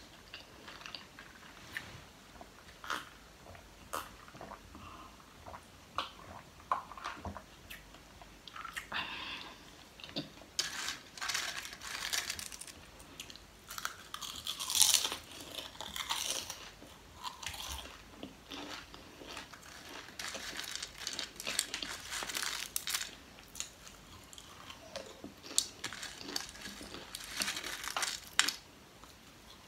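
Lay's potato chips being bitten and chewed close to the microphone: a run of sharp, crisp cracks and crunches that comes in clusters, loudest about halfway through.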